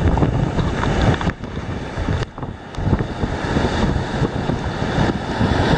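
Whitewater rushing and splashing in a river rapid, heard from a boat in the waves, with wind buffeting the microphone. The roar dips briefly about a second and a half in, then comes back at full strength.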